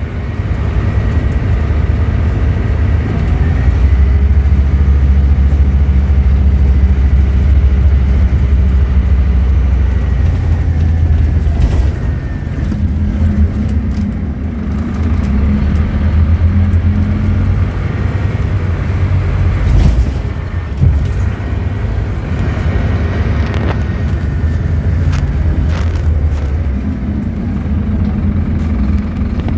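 Scania K230UB bus's five-cylinder diesel engine working under way, heard from inside the saloon as a deep drone; the engine note drops and rises in steps as the automatic gearbox changes gear. A few sharp rattles or knocks about twenty seconds in.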